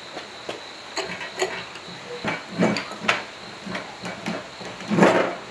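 Metal knocks and clanks from a generator's rotor and cast end cover being handled and fitted into the stator housing. It is a string of separate, irregular knocks, the loudest near the end.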